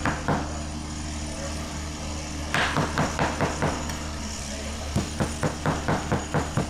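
Rapid, even knocking, about four to five hard strikes a second, in short runs broken by pauses of a couple of seconds, with one louder hit about two and a half seconds in, over a steady low hum.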